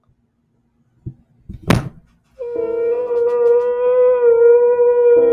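Edited-in sound effect: after a second of silence, a single sharp hit, then a long held wailing tone that stays on one pitch.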